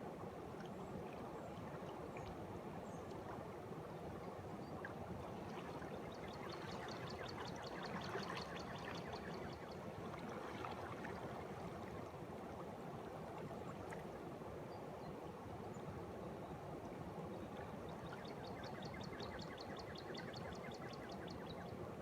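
Water of a tubular spring boiling up from an underground cavern, bubbling and flowing steadily. A bird trills twice over it, each time a fast run of high notes lasting a few seconds.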